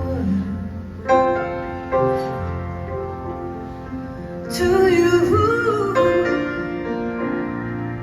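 Live band music: piano chords ringing, with new chords struck about a second in and again just after. A woman's voice comes in about halfway through, singing a wavering, held line over the piano.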